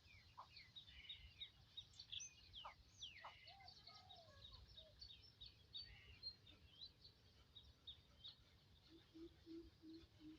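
Faint outdoor birdsong: several birds chirping with short, quick whistled notes. Near the end a low note starts repeating about three times a second.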